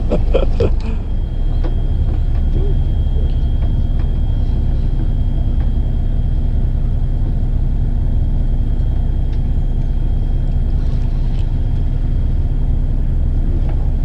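A fishing boat's engine running steadily, a low, even drone with no change in speed.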